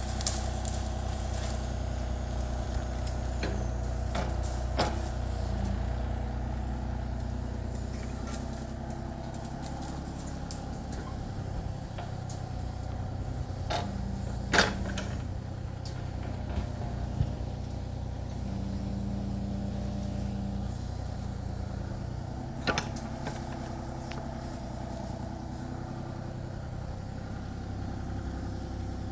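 Kubota KX033-4 compact excavator's diesel engine running steadily, with three sharp clanks spread through the run, the middle one loudest.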